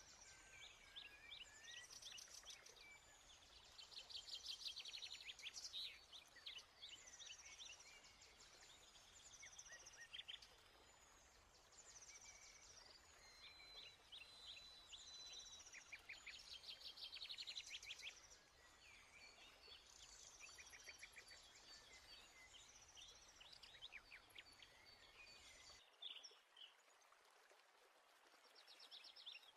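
Faint birdsong from several small birds: quick chirps, trills and rapid runs of high notes overlapping throughout, over a low steady hum that cuts off near the end.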